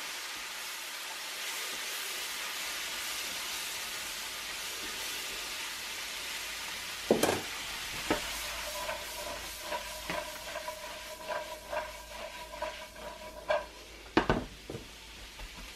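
Sliced mushrooms and diced onions sizzling in butter in a nonstick skillet while being stirred and tossed with a silicone spatula. There are two sharp knocks, about seven seconds in and near the end, and scraping and clicking in the second half. A steady pitched tone lasts several seconds in the second half.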